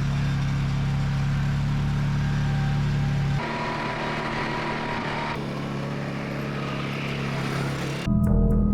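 A motor vehicle running steadily, with engine hum and road or wind noise. Its sound shifts abruptly about three and a half seconds in and again about two seconds later.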